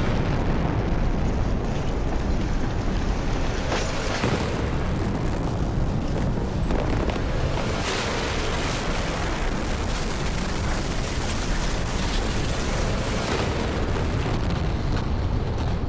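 Explosion blast tearing through a building: a loud, continuous rumbling roar, with fresh sudden surges about four, eight and thirteen seconds in.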